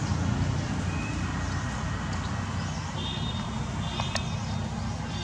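Steady low rumble of distant road traffic, with faint high-pitched chirps from birds or insects from about halfway through and a single sharp click about four seconds in.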